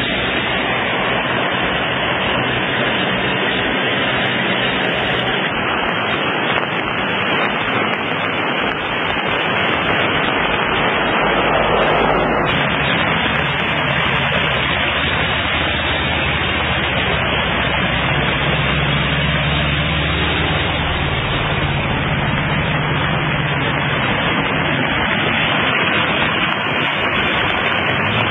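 Steady, loud hiss of water and traffic on a flooded street, with a vehicle engine droning for a few seconds past the middle.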